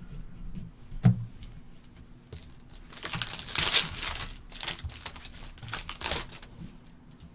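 Foil trading-card pack wrapper being torn open and crinkled in bursts, with a sharp thump about a second in.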